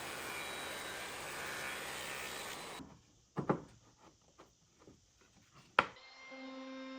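A steady rushing noise from workshop work stops abruptly about three seconds in. A few sharp knocks on wood follow, two of them loud. Near the end a steady held tone begins.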